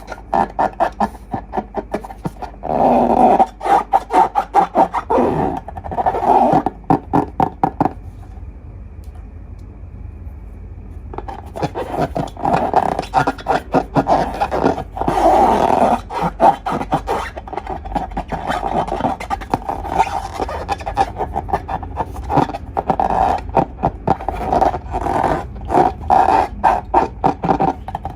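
Slime being squeezed and worked by hand, squelching with rapid crackles and pops of trapped air, with a quieter lull about a third of the way in.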